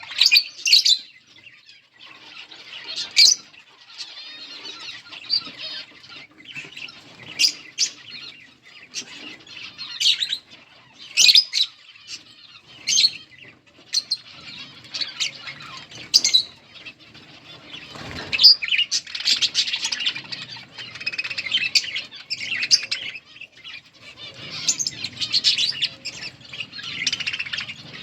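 A flock of budgerigars chirping and chattering: many short, sharp high calls every second or so, thickening into continuous chatter in the second half.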